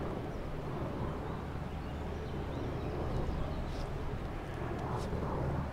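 Low, steady drone of a passing inland cargo ship's diesel engine, with a rough wash of noise over it. A few faint, short high chirps come near the end.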